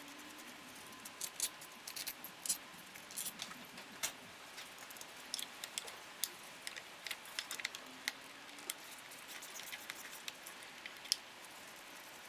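Irregular light metallic clicks and clinks as the small Torx bolts holding the ignition coil packs are unscrewed and handled. They start about a second in and die away near the end.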